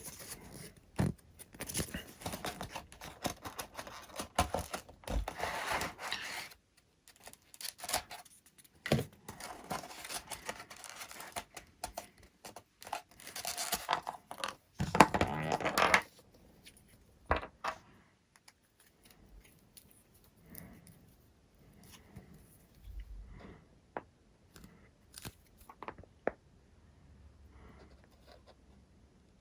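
Scraping, rustling and tearing sounds from hands working on broken EPP foam airframe pieces, busy with sharp clicks for about the first half. Then it drops to a few scattered faint clicks and taps.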